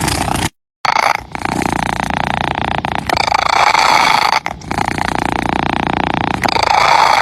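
Domestic cat purring right against the microphone, a dense buzzing purr that comes in cycles of about one and a half to two seconds with short dips between breaths. The sound cuts out completely for a moment about half a second in.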